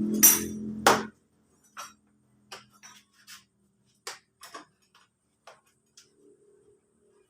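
Honda Vario scooter engine running, then cut off about a second in, followed by scattered light clicks and taps.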